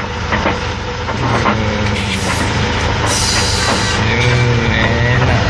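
Diesel engine of an Astros II MK 6 rocket-launcher truck running with a steady low hum, heard from inside the cab. A short burst of hissing comes about three seconds in.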